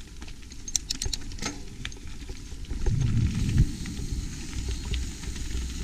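Mountain bike rolling down a wet trail: tyres hissing on the wet surface and wind buffeting the helmet camera's microphone, with a few sharp rattling clicks from the bike about a second in.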